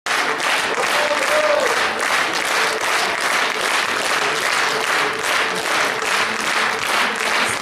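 Concert audience applauding, steady dense clapping throughout.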